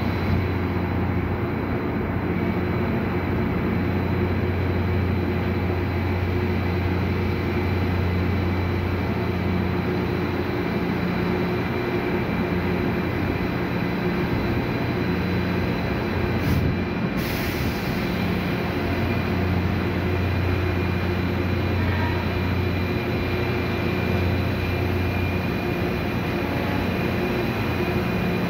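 An Indian Railways ALCO diesel locomotive's engine runs with a steady low drone as the train rolls by, over a constant rumble of wheels and track. There is one brief break about halfway.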